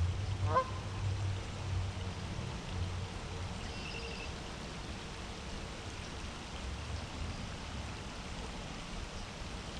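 Steady rain falling through tree cover, an even hiss with a low rumble underneath. A short rising call comes just after the start and a brief high call about four seconds in.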